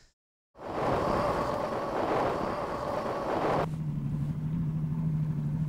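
A moment of silence at an edit, then a boat's motor running steadily with wind on the microphone. About three and a half seconds in, the sound changes to a lower, steady motor hum.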